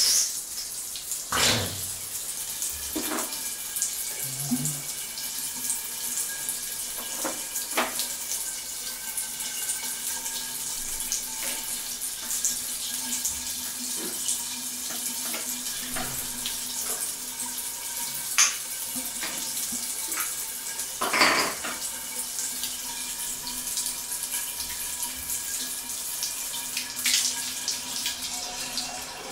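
Water running steadily out of an open wall supply pipe stub where the flush valve has been removed, pouring down onto the toilet, with a few sharp clicks and clinks of the chrome flush-valve parts being handled.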